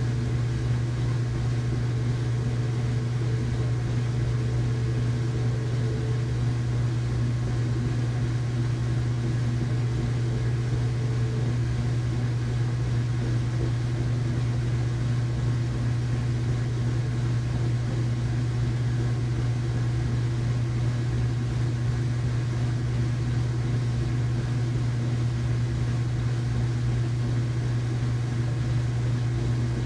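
Household washing machine running in its rinse cycle: a steady, even motor hum.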